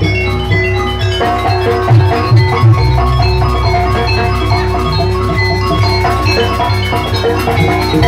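Gamelan-style jaranan music: metal-keyed percussion rings a quick run of struck notes over drums and a heavy low pulse.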